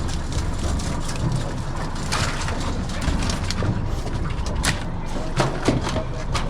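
Boat engine running low and steady, with a few sharp knocks and clatters on deck.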